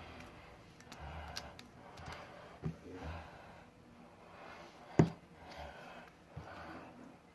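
Heavy breathing close to the microphone, a breath swelling and fading about once a second, with a few light clicks and one sharp click about five seconds in.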